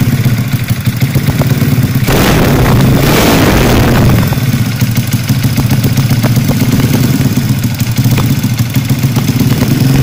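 Bored-up Yamaha Jupiter four-stroke motorcycle engine running through a BRS aftermarket exhaust, idling with the throttle blipped once, revving for about two seconds from about two seconds in, then settling back to idle.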